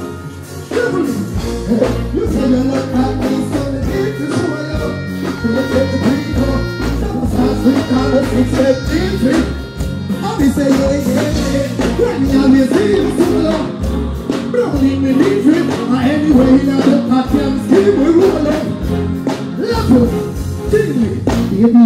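Live band music played through a concert PA, with a steady drum beat, and a man singing over it into a microphone.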